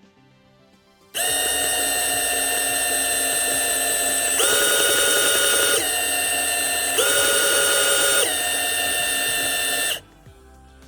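Prototype surgical drill's small electric motor running with a steady whine, switched on about a second in and off near the end. Twice it briefly shifts slightly lower in pitch and grows louder.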